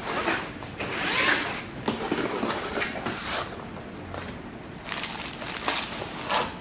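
A cardboard packaging box opened by hand: the lid sliding off with a scraping swish, then the rustle of the packing inside, a fabric drawstring bag and plastic-wrapped parts, being handled in a series of swishes.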